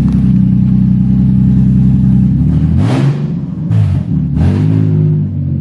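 The Nissan 350Z's swapped 3.5-litre VQ35DE V6 idles steadily, then is blipped three times in quick succession about halfway through, the note rising and falling each time before it drops back to idle.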